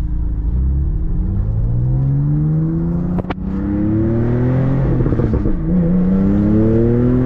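Porsche 911 Carrera T's twin-turbo flat-six, fitted with Soul sport cats and sport exhaust, accelerating hard, heard from inside the car with the windows open. The engine note climbs steadily in pitch, drops briefly as it shifts up about three seconds in and again past five seconds, then climbs again.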